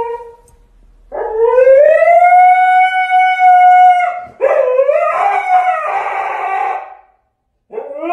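Husky howling. It gives a long call that rises and then holds steady for about three seconds, then a rougher, wavering howl, and a third begins near the end. The howling is the dog's protest at its owner getting ready to leave.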